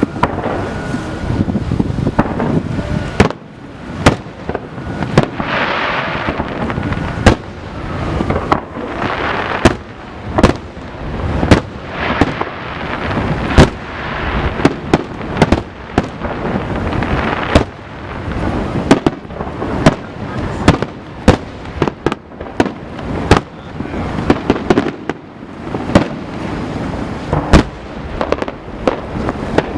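Aerial fireworks display: an irregular string of sharp booms from bursting shells, a few a second, with several stretches of dense crackling between them.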